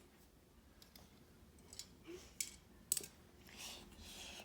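Faint clicks of plastic electronics-kit parts being handled and snapped into place, three sharper ones about two to three seconds in, with a soft rustle near the end.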